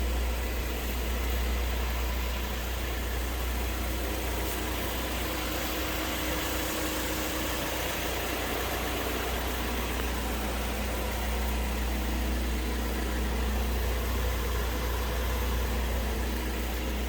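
A 2014 Ford Fusion's engine idling, a steady low rumble.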